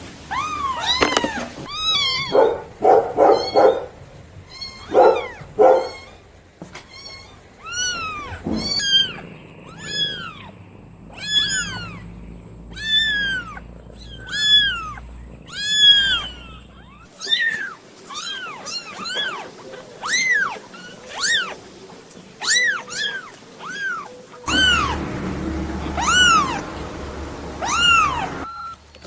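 Young kittens meowing over and over: thin, high mews that each rise and fall in pitch, about one a second, with a run of lower, shorter calls a few seconds in.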